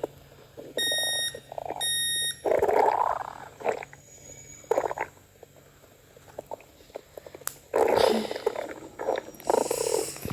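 Electronic sounds from a toy unicorn: two short, evenly pitched beeps about a second apart, then several rough, rumbling growl bursts meant as a stomach growl.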